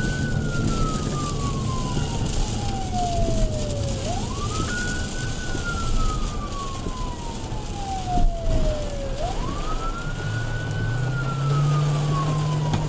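Police car siren wailing on the pursuing patrol car, three slow cycles that each rise quickly and fall slowly over about four seconds, with engine and road noise underneath.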